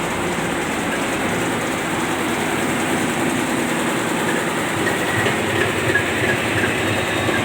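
Tugboat's main marine diesel engines running at low revs, heard in the engine room as a loud, steady mechanical din. The turbocharger whine stays quiet because the engine speed is still low.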